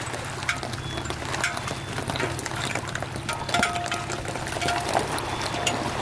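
Pickup truck engine running at low speed while it moves an empty boat trailer on a concrete launch ramp, with frequent small clinks and rattles from the trailer and water at the ramp.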